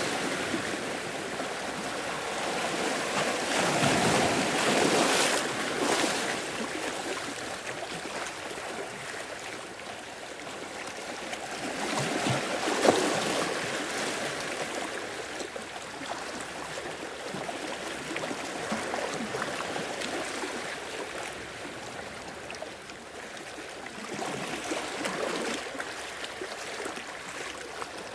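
Sea waves washing in and draining back over the shore, swelling about every eight to twelve seconds with trickling water in between; one brief sharp slap of water about halfway through.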